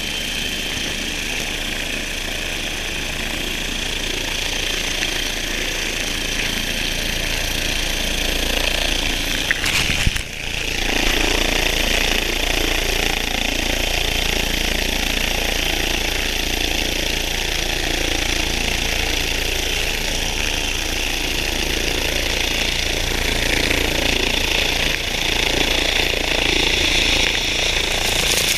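Helicopter running on the ground with its rotor turning: a steady high turbine whine over rotor chop. There is a brief knock about ten seconds in.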